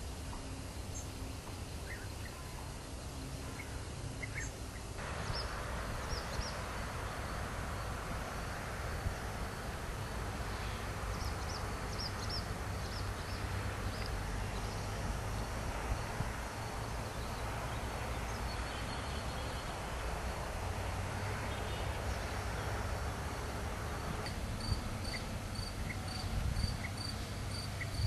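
Outdoor ambience of steady hiss and low hum, which grows louder about five seconds in, with a few faint short bird calls. Near the end a cricket starts chirping in an even series of about two to three chirps a second.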